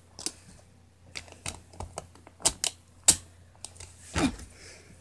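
Scattered sharp clicks and clacks of hard plastic Beyblade tops being handled, about a dozen at irregular intervals.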